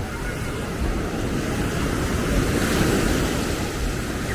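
Steady seaside ambience of surf and street traffic blended into one noisy wash, with wind buffeting the microphone. It swells a little about two and a half seconds in.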